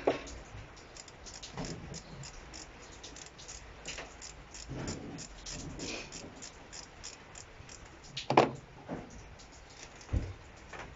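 Ratchet wrench clicking in quick runs of light metallic ticks as the 7 mm hose clamps on the intercooler pipes are undone, with a single louder knock about eight seconds in.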